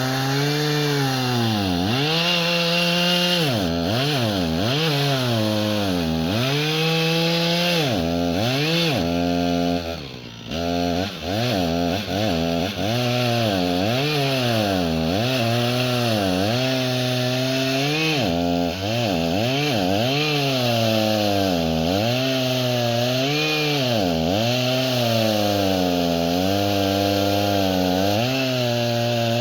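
Chainsaw cutting oak, its engine pitch dropping again and again as the chain bites into the wood and climbing back as it frees. About ten seconds in the throttle is briefly let off before the saw revs back up into the cut.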